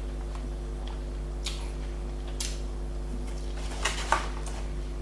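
A few light clicks and taps from eating a takeaway meal, over a steady low electrical hum; the sharpest click comes a little after four seconds in.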